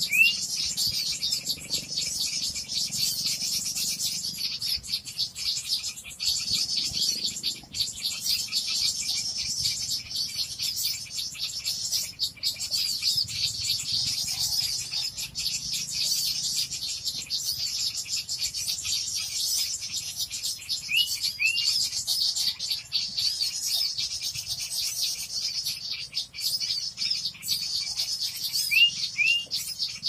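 Bird-lure (pikat) recording of many small songbirds twittering rapidly and without a break, a dense high chatter meant to draw wild birds in. Pairs of short rising whistles cut through the chatter at the start, about two-thirds of the way in and near the end.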